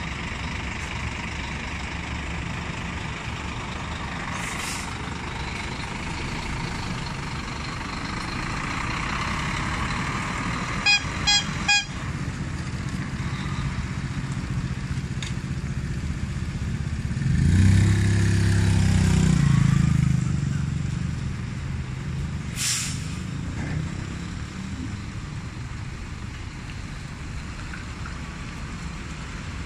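Scania G440 diesel truck running under a steady low hum, with three short horn toots about eleven seconds in. The engine then swells loudly for a few seconds as the truck pulls away with its lowboy trailer. Two short air hisses, one early and one after the pull-off.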